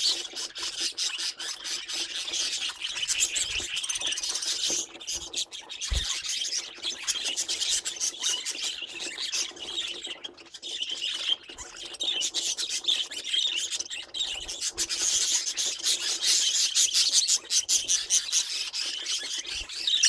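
Budgerigars chattering and warbling: a dense, scratchy stream of rapid chirps and chatter that runs on without pauses.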